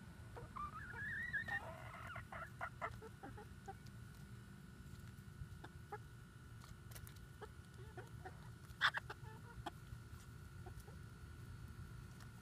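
Hens clucking softly, with one rising call near the start, and scattered sharp taps of beaks pecking at grapes on ice in an aluminium pie tin; the loudest tap comes about nine seconds in.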